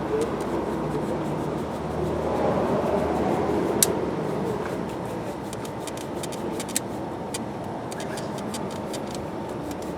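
A steady mechanical hum, like an engine running, with a few sharp metallic clicks and taps.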